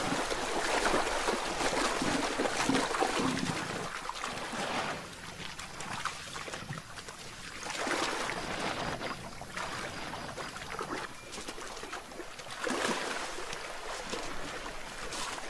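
African elephants wallowing in a mud hole: wet mud and water splashing and sloshing irregularly, in uneven bouts with quieter gaps between them.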